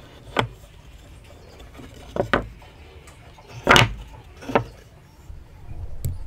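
Wooden joint pieces being handled: about six short wooden knocks as the blocks are set against each other and on the workbench, including a quick double knock about two seconds in and the loudest one a little past halfway.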